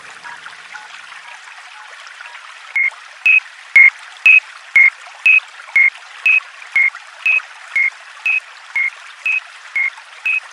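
A steady hiss, and from about three seconds in a railway level-crossing warning bell sounding: short, loud electronic tones alternating between a higher and a lower pitch, about two a second.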